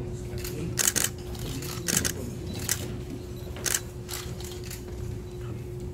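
Camera shutters clicking four times, roughly a second apart, over a steady low hum.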